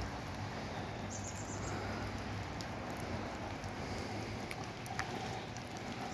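Rain falling on a lawn and garden: a steady hiss with a few scattered drip clicks.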